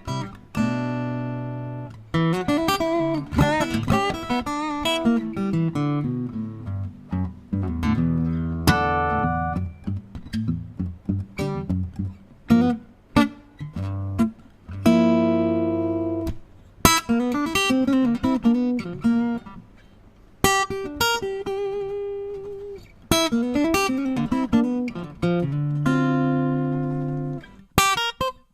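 Segovia D07 dreadnought acoustic guitar played solo: picked single-note runs and chords that ring out, with short pauses between phrases.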